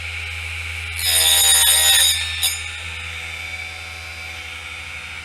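Small hobby drop saw with a tungsten carbide-tipped blade running, then cutting through a piece of wood about a second in: a loud, pitched whine that sags slightly for about a second. A sharp click follows as the cut finishes, and the motor keeps running.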